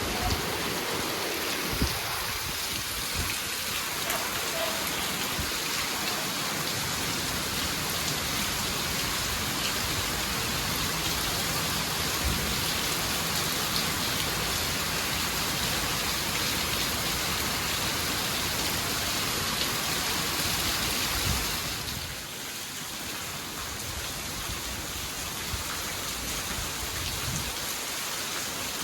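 Heavy rain falling steadily, a dense hiss of drops on surfaces. It eases off a little about three-quarters of the way through.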